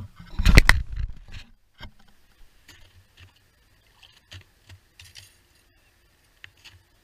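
Boots crunching on snow-covered lake ice for about a second and a half. Then a few faint clicks and scuffs as an ice-fishing tip-up is lifted from its hole and the line is drawn in by hand.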